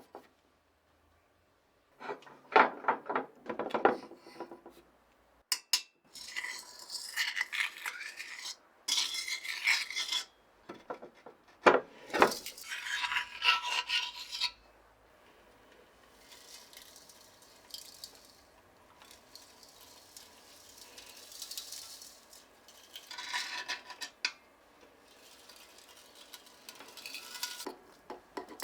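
Metal parts clattering and scraping as they are handled, in several separate bursts, with fainter rubbing between them in the second half.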